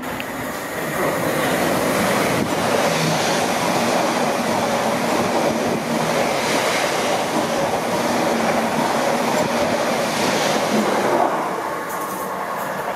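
Class 745 electric multiple unit (Stadler FLIRT) running past along the platform: a loud, sustained rush of wheel and rail noise that eases off about a second before the end.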